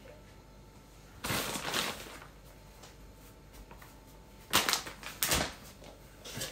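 Short rustling and handling noises from hands working at a kitchen counter while shredded mozzarella is scattered over a pizza and its plastic bag and containers are handled: one burst about a second in and two quick ones past the middle.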